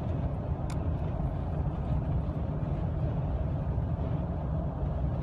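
Steady low rumble of a vehicle driving at road speed, engine and tyre noise heard from inside the cabin of the following car, with a faint click about a second in.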